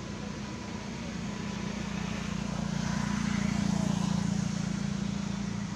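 Low engine hum of a passing motor vehicle, growing louder about halfway through and easing off near the end.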